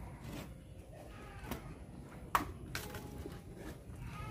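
A few light knocks and clicks as the active speaker's control panel module is handled and fitted back, the sharpest about two and a half seconds in, over a low background hum.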